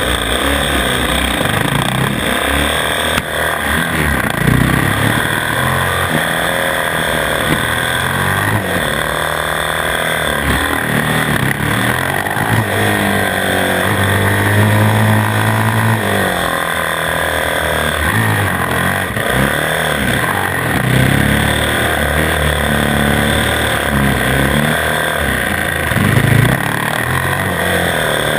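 450 cc four-stroke single-cylinder supermoto engine heard from an onboard camera, revving up and dropping back again and again through corners and gear changes, over a steady hiss.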